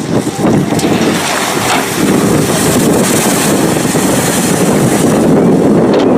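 Loud steady rushing noise, like wind buffeting the microphone.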